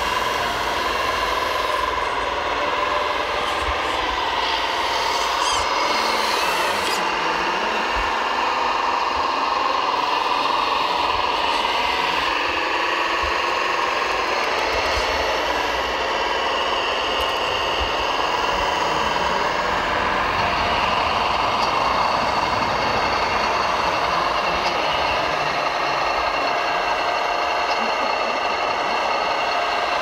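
Scale RC Bobcat skid-steer loader and RC tipper truck at work, giving a steady mechanical whine and hum of small motors and hydraulics that shifts slightly in pitch as the loader digs and lifts its bucket.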